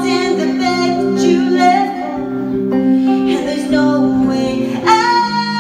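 Live song: a woman singing over clean electric guitar, with a new held note coming in near the end.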